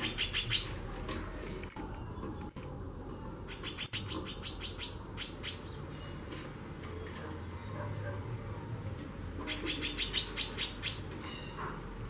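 Female white-bellied seedeater (chorão, Sporophila leucoptera) giving its rapid chattering call ('xaxando'): three bursts of quick, high, evenly repeated notes, about six a second, one at the start, one around four seconds in and one around ten seconds in.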